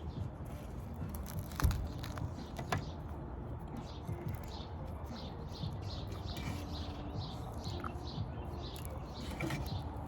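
Close-up chewing and mouth sounds from eating biryani, a quick run of wet smacks, with a couple of sharp clicks early on.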